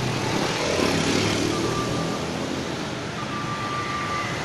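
Steady roadside traffic noise: motorbike and car engines running past on the street.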